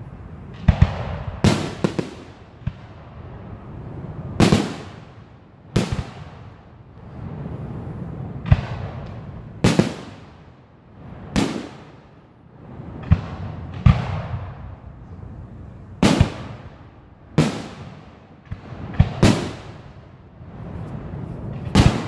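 Aerial fireworks shells bursting overhead in quick succession: about fifteen sharp bangs, a second or two apart and sometimes in close pairs, each trailing off in a low rolling rumble.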